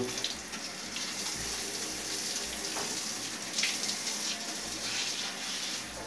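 Water running steadily from a hand-held shower head, an even hiss.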